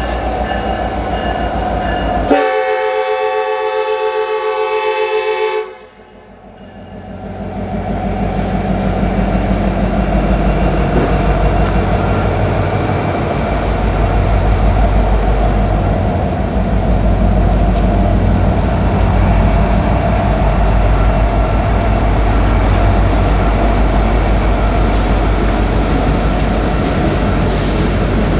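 Diesel freight locomotives led by an EMD SD70ACe approach a grade crossing with the crossing bell ringing, and about two seconds in the lead unit sounds its air horn in one chord lasting about three seconds. After the horn cuts off, the locomotives' diesel engines and the wheels on the rail rumble steadily past.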